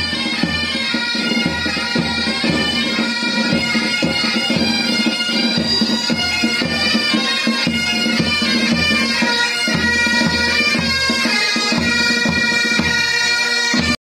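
Military pipe band playing a march: bagpipes sounding a melody over their steady drone, with a bass drum beating time underneath.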